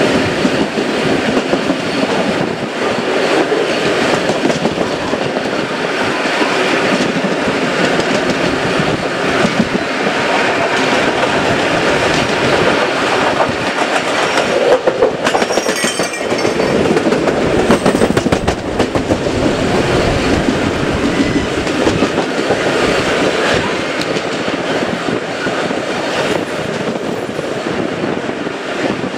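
Steam-hauled heritage passenger train running along the line, loud and steady.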